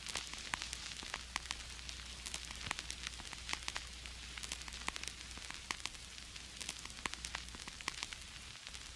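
Vinyl record surface noise: a steady hiss dotted with irregular crackles and pops, over a low steady hum.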